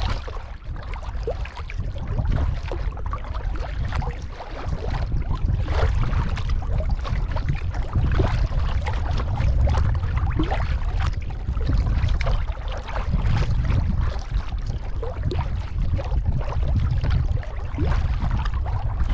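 Kayak paddle strokes splashing and dripping in the water, the loudest swells coming every couple of seconds, over a steady low rumble of wind on the microphone.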